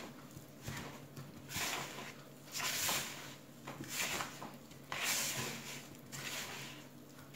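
Hand squeezing and rubbing soft butter with icing sugar and lemon zest in a plastic bowl: squishy, rustling strokes about once a second, over a faint steady hum.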